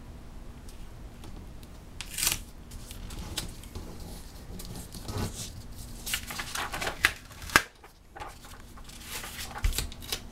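Tyvek tape and a Tyvek flap on paper being pressed down and folded by hand: irregular crinkling and rustling, with a louder burst about two seconds in and a run of sharp crackles a little past the middle.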